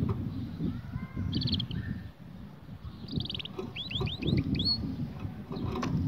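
Canary singing in short phrases: a quick high trill, then another, then a run of about five falling notes ending on a rising one, over an irregular low rumble.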